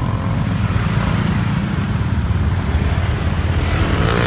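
Steady low rumble of wind on the microphone and road traffic, with motorcycles and cars nearby, heard from a moving rider. A short knock near the end.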